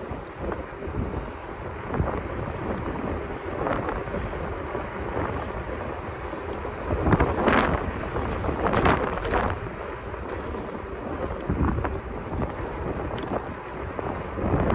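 Wind buffeting the microphone over the road rumble of an electric scooter riding along city pavement. It swells louder for a couple of seconds about halfway through.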